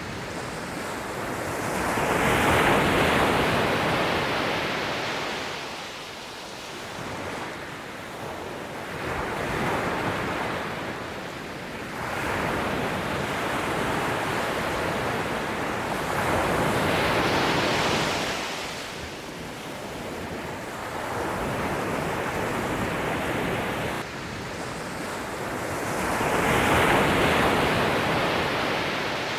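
Ocean surf: waves breaking and washing in, rising and falling in slow surges every several seconds, loudest a few seconds in and again near the end.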